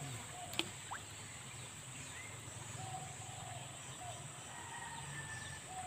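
Outdoor ambience of insects droning steadily at a high pitch and birds giving short calls, with one sharp click about half a second in.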